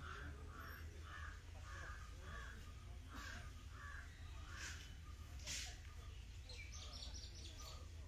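Crows cawing outdoors: a quick run of short caws about two a second through the first few seconds, then fainter scattered caws, with a brief high twitter near the end.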